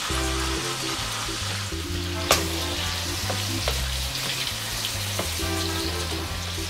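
Diced cuttlefish and garlic sizzling in hot olive oil in a paella pan, with a spatula stirring them. Scattered pops of spitting oil come through, a sharp one about two seconds in.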